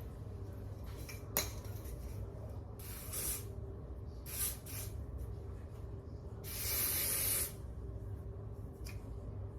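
Lace-melting spray sprayed onto a wig's lace in three hissing bursts, the last one the longest and loudest at about a second, with a sharp click shortly before the first burst.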